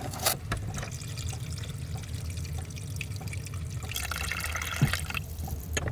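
Water trickling and dripping with small clicks, louder for about a second near the end, over a steady low hum.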